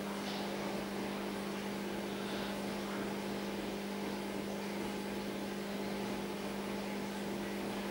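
Steady mechanical hum with a constant low tone and an even hiss over it, like a motor or fan running.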